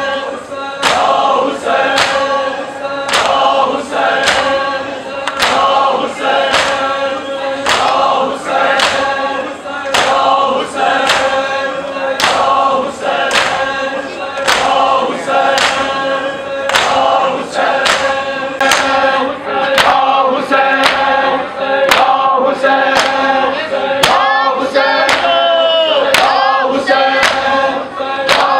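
A crowd of men chanting a noha together, kept in time by sharp, even slaps of hands striking bare chests (matam), about two slaps a second.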